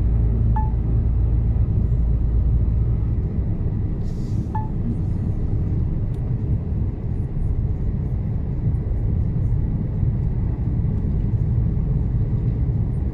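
Mercedes-Benz Actros truck running steadily on the road, a low engine and road drone heard from the cab, with the deepest rumble easing a little about three seconds in. Two short faint chirps sound about four seconds apart.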